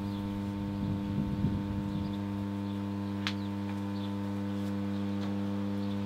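Steady electrical mains hum, a low buzz pitched around 100 Hz with overtones, from the high-current test supply driving about 38 amps through the wire connectors. A single faint tick about three seconds in.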